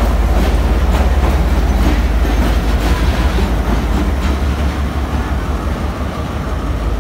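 Pakistan Railways GMCU-15 diesel locomotive running light along a platform, its diesel engine giving a steady low drone, with a few sharp clicks from the wheels over rail joints. The sound eases off from about four seconds in as the locomotive moves away.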